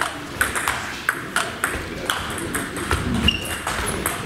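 Celluloid-style table tennis ball being struck back and forth in a rally: sharp, quick clicks of ball on rubber paddle and table top, roughly two or three a second, thinning out after about three seconds as the point ends.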